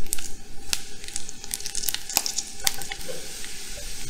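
Chickpea gnocchi searing in a frying pan: a steady sizzle with scattered sharp crackles.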